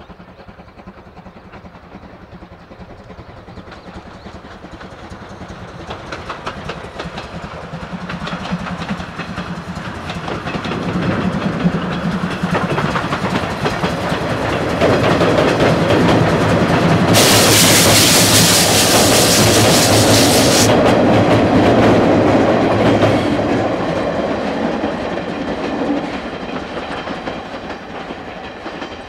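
JNR C12-class tank steam locomotive (C12 66) hauling a train of coaches, growing louder as it approaches, with wheels clattering over the rails, then fading as it passes. At its loudest, about two-thirds in, a loud hiss starts suddenly, lasts about three seconds and cuts off.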